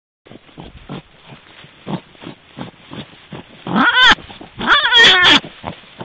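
Faint scattered taps, then two loud drawn-out animal cries that fall in pitch, the first a little under four seconds in and the second about five seconds in.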